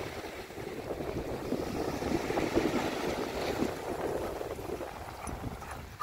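Small waves breaking and washing up onto a sandy beach, with wind buffeting the microphone.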